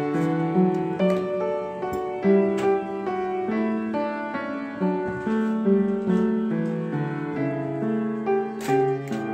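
Background piano music: a gentle melody over chords.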